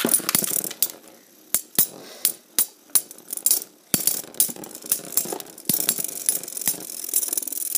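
Metal Beyblade spinning tops launched by ripcord into a plastic bowl stadium, then spinning and clashing: repeated sharp clacks as they strike each other and the bowl, turning into a near-continuous grinding rattle from about halfway through as they rub together.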